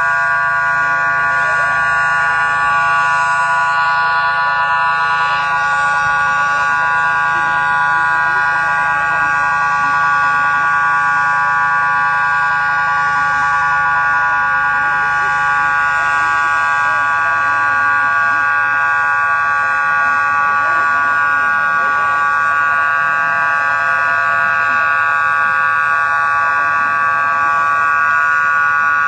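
A loud, steady buzzing drone with many overtones that does not change in pitch. A lower hum underneath it drops away about sixteen seconds in.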